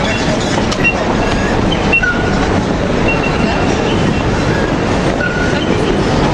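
Busy railway terminus ambience: a steady loud din of crowd and trains, with short high-pitched squeals now and then.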